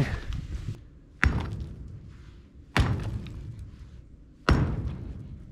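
Sledgehammer striking a concrete block wall three times, about a second and a half apart. Each blow is a sharp hit that dies away, as the last block is broken out of the wall.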